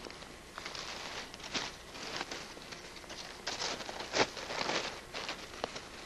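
Dry leaf litter on a woodland floor rustling and crackling in irregular bursts, with a sharper snap about four seconds in.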